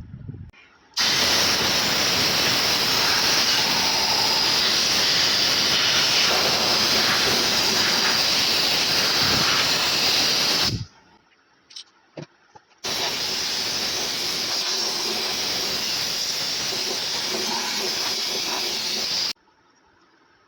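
Two long bursts of a steady pressurised hiss, each switched on and off abruptly: the first runs about ten seconds, and a second, slightly quieter one follows about two seconds after the first cuts off.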